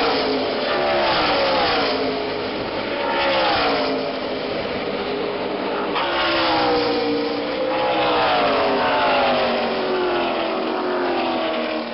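NASCAR Cup stock cars passing at racing speed one after another, each V8 engine note dropping in pitch as the car goes by, over a continuous wash of engine noise from the field.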